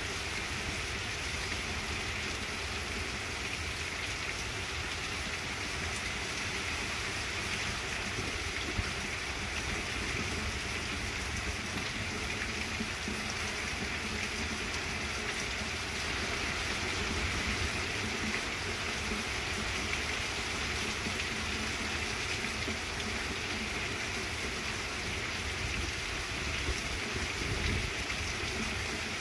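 Heavy hurricane rain falling steadily on trees, plants and ground, with a low rumble underneath.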